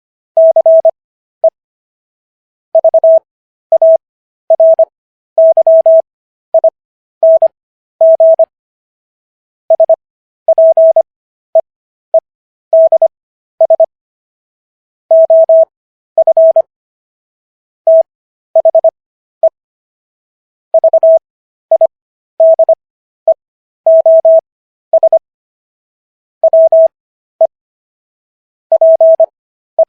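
Morse code practice tone keyed at 25 words per minute character speed with Farnsworth spacing for an overall 15 words per minute. A single steady mid-pitched beep sounds in short dits and longer dahs, packed tightly within each letter, with longer pauses between letters and words.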